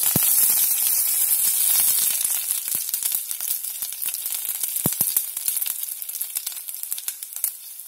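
Fresh curry leaves sizzling in hot oil with a tempering of mustard seeds, cumin and urad dal, a steady hiss with scattered crackling pops. The hiss is loudest in the first couple of seconds, just after the leaves go in, and eases off after that.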